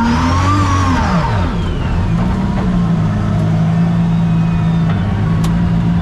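Toyota Vios race car's 1NZ four-cylinder engine under racing load: the engine note rises and falls, drops away about a second and a half in, then holds a steady pitch.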